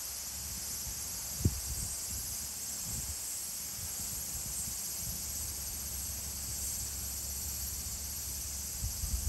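Steady high-pitched insect chorus, with a low rumble underneath and a single sharp knock about one and a half seconds in.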